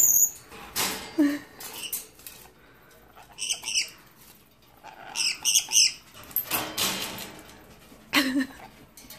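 Yellow-streaked lory moving about a wire cage: wing flutters and several sharp knocks and rattles against the bars and floor grate. Short bursts of high-pitched squeaks come twice near the middle.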